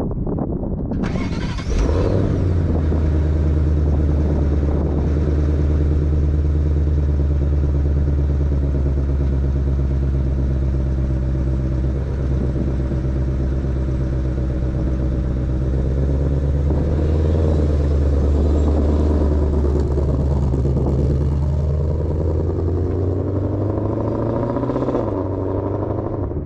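2022 Shelby GT500's supercharged 5.2-litre V8 cranking and starting about a second in, then idling steadily. Toward the end the engine note rises and shifts as the car pulls away and drives off.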